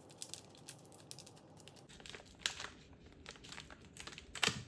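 Wrapper of a trading-card pack crinkling and crackling as it is handled and opened, in many short, sharp crackles, with louder ones about two and a half seconds in and just before the end.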